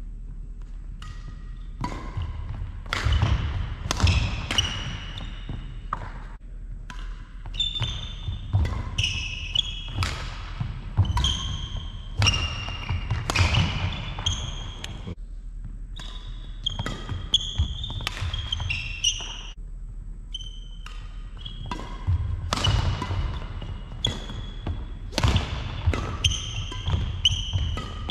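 Badminton rally: rackets striking the shuttlecock, shoes squeaking in short high chirps, and footfalls thudding on the sprung wooden court floor. All of it echoes in a large sports hall.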